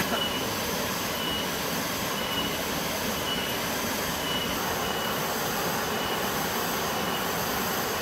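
Waterfall and a small cascade pouring into a rock pool: a steady rush of falling water, with thin high tones coming and going above it.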